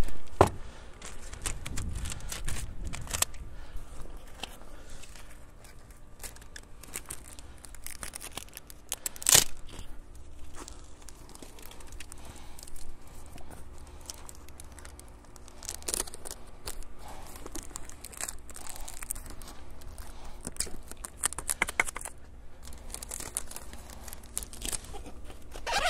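Clear packing tape being pulled, torn and pressed onto a crinkly plastic cover wrapped around a folded soft top: scattered rips and crinkling, with one sharper sound about nine seconds in.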